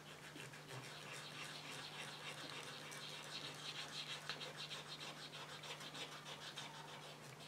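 Faint, quick, repeated rubbing of a saliva-dampened cotton bud scrubbing over the painted surface of an old oil painting, lifting smoke grime.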